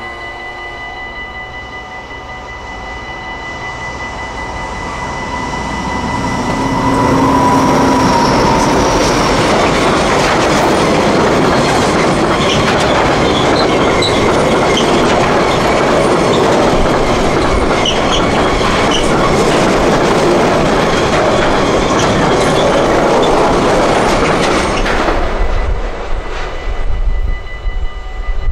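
A long freight train of tank wagons passing over a level crossing. Its rumble and wheel clatter build over the first few seconds, run loud and dense for about eighteen seconds, then stop suddenly as the last wagon clears. The crossing's warning bell rings steadily throughout.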